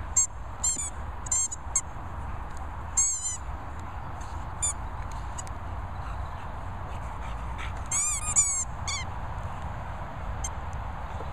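Yellow rubber squeaky dog toy squeaking in short high-pitched bursts as an English Bull Terrier chews it: a few squeaks in the first couple of seconds, single ones around three and four and a half seconds in, and a quick run of squeaks near the end. A steady low rumble lies underneath.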